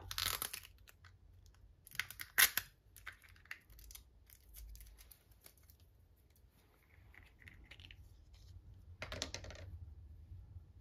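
Small plastic packaging being opened by hand: short bursts of crinkling and tearing, the loudest with a sharp click about two and a half seconds in, then softer rustles.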